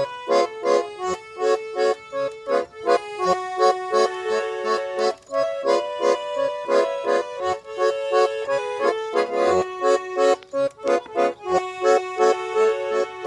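Garmon (Russian button accordion) playing a folk tune: a melody over short chords in a steady, bouncing rhythm.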